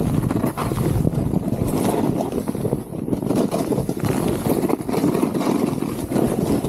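Gnu Headspace snowboard sliding and carving over snow, a continuous rough rush with uneven scraping pulses, mixed with wind buffeting the microphone.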